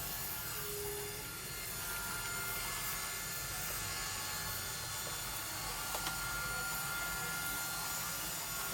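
iRobot Roomba 971 robot vacuum running: a steady whirr of its suction motor and brushes, with a couple of faint clicks.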